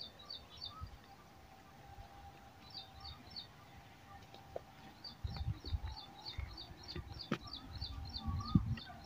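A small bird calling in quick runs of high chirps, about four or five a second, in three bouts with pauses between them. Faint low rustling and a few soft knocks come in over the second half.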